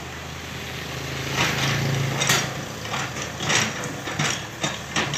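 Sumitomo hydraulic excavator's diesel engine running, its note rising under load about two seconds in as the bucket digs soil. Several short sharp knocks and scrapes sound over it.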